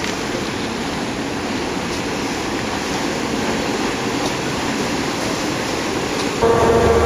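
Steady rushing of lake water mixed with wind, with no distinct events. About six seconds in it cuts to a louder, steady machinery hum made of several held tones.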